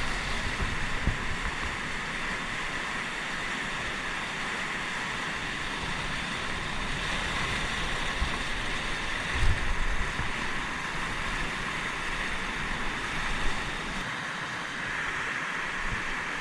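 Steady rush of fast-flowing river water, with a few brief gusts of wind on the microphone.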